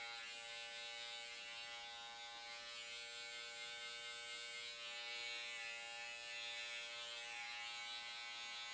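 Andis GTX-EXO cordless hair trimmer running with its blade free, a steady even buzz.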